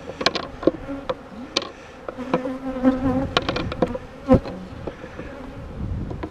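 Honeybees buzzing around an open hive, with a steady hum and a lower, louder buzz passing for about a second near the middle. Over it come repeated sharp clicks and knocks of a hive tool and frames being handled, the loudest about four seconds in.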